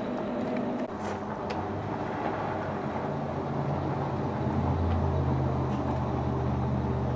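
A motor vehicle's engine running steadily with a low hum that grows stronger about a second in and again around four to five seconds in, with a couple of faint clicks early on.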